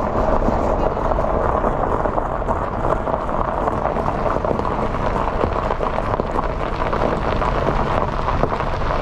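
Steady rumble of a car with wind buffeting the microphone, with faint crackling throughout.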